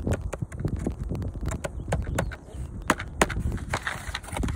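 Hands handling a cardboard toy-pistol box: scattered taps, rubs and clicks, two sharper clicks about three seconds in, over low wind rumble on the microphone.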